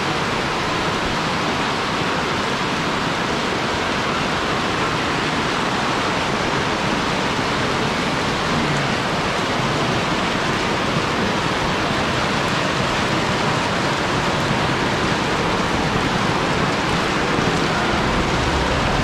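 Floodwater rushing steadily, a constant loud hiss of flowing water with no breaks.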